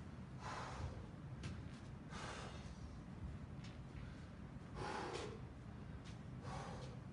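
A man breathing hard, about six heavy breaths roughly a second apart as he gets his breath back after a sprint of fast foot-dribbling.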